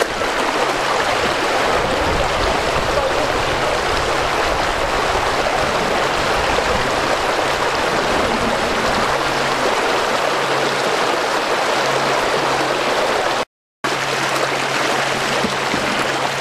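Shallow river water rushing and churning steadily over the shallows, broken by a brief silent gap about thirteen and a half seconds in.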